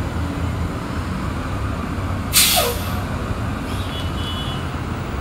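City transit bus idling with a steady low engine rumble; about two and a half seconds in, a short sharp hiss of air from its air brake system.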